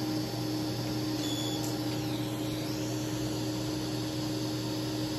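Surgical smoke evacuator suction running steadily with a low hum while a laser treats the skin of the nose, drawing away the burning-tissue plume. A short faint high beep sounds about a second in.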